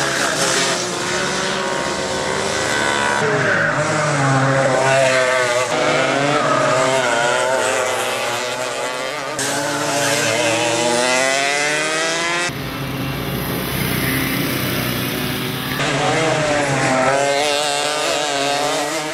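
Several two-stroke racing go-kart engines revving hard, their pitches rising and falling and overlapping as the karts accelerate, brake and pass.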